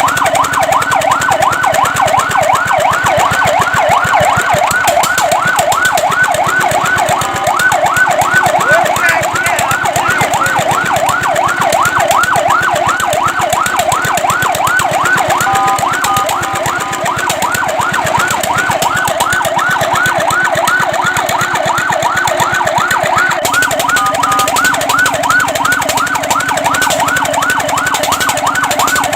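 Fire truck siren sounding in a fast yelp, a rapid sweep up and down repeating about three times a second, twice briefly broken by a steady tone.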